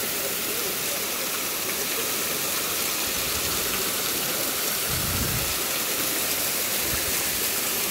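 Hot-spring water pouring off a rock ledge into a pool, a steady splashing rush. A brief low thud about five seconds in.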